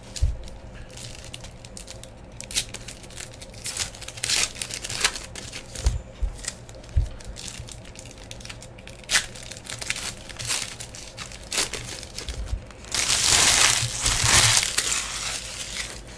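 Foil trading-card pack wrappers crinkling and tearing as packs are opened by hand, in a run of scattered crackles. A louder, longer burst of crinkling comes near the end.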